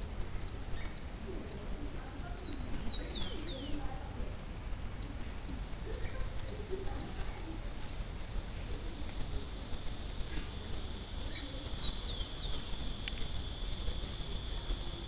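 Wild birds calling in the background: a short group of quick, high, falling whistles about three seconds in and again near the end, with a steady high tone setting in about halfway through.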